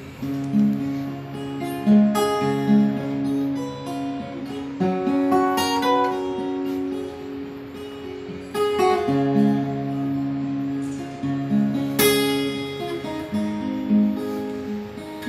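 Solo acoustic guitar playing chords, the notes left to ring, with a firmer strum every three to four seconds.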